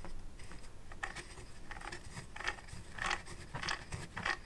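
Small metal gear assembly being handled and turned by hand: irregular light scrapes and clicks of metal parts and gear teeth, a couple a second.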